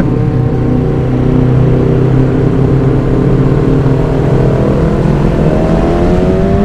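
Kawasaki Ninja sport bike engine running at highway speed under heavy wind rush on a helmet microphone. In the last couple of seconds the engine note rises steadily as the bike accelerates.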